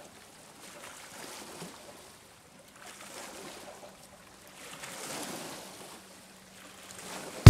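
Small waves lapping at the shallow edge of a river, coming in soft swells about every two seconds.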